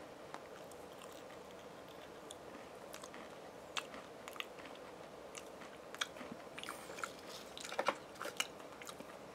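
Quiet crunching and chewing of Pringles potato crisps in the mouth: a few scattered crackles at first, coming more often from about four seconds in.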